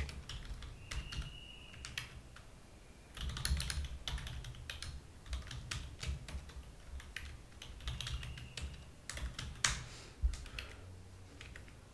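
Typing on a computer keyboard: runs of quick keystroke clicks in short bursts with pauses between.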